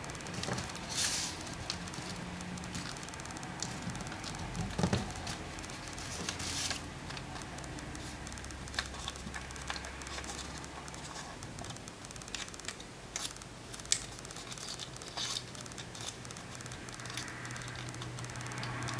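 A sheet of origami paper crinkling and rustling as hands fold and crease it, in irregular bursts with sharper crackles now and then.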